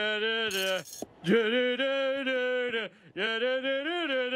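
A slow melody sung or played in long held notes with slight bends in pitch, breaking off briefly about a second in and again about three seconds in.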